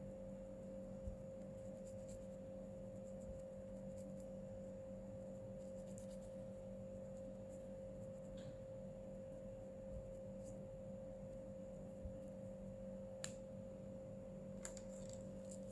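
Steady low electrical hum holding two even tones, with a few faint light taps near the end.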